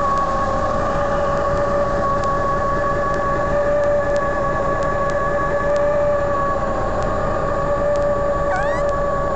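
Diesel semi-truck engine idling, a steady low clatter with a steady high whine over it. A brief rising chirp near the end.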